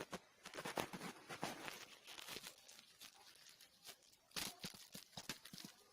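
Faint kitchen handling noises: scattered short clicks and rustling scrapes, with a denser run about four and a half seconds in.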